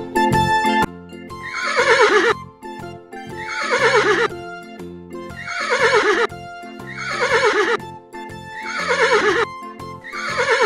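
Horse whinnying five times, about every two seconds, each call falling in pitch with a quavering shake, over light background music.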